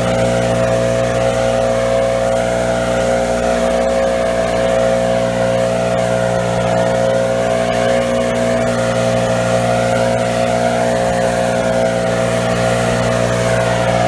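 Small engine of lawn-mowing equipment running at a constant speed, with a fainter whine that wavers up and down above it.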